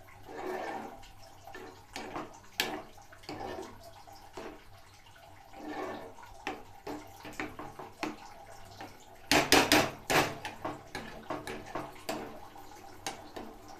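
A metal spoon stirring rice in bubbling sugar syrup in a pan, wet stirring with scattered clicks of the spoon against the pan. A run of louder knocks and scrapes comes about nine to ten seconds in.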